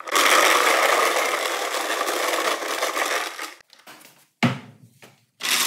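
A long, loud scraping rasp lasting about three and a half seconds, like something heavy being dragged over the shop floor, then a sharp thump and a second, shorter scrape near the end.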